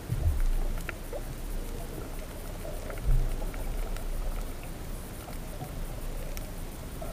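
Underwater ambience picked up by a camera in its housing: a low, muffled water rumble with a faint hiss, two dull thumps (one just after the start, one about three seconds in), and a few scattered faint clicks.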